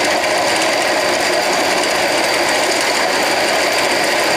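A 48 V 1000 W BLDC electric motor driving a converted scooter's raised rear wheel through a chain, running steadily with a continuous mechanical whir and clatter. The noise comes from the chain being loose and touching.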